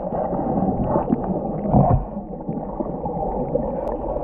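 Muffled underwater sound of a swimming elephant: a dense rush of bubbles and water crackle, with a deeper surge about two seconds in.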